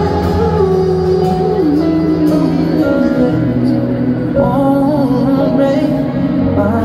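Live acoustic guitar and piano music, amplified through a stadium sound system, with a voice singing long, wavering held notes over sustained chords.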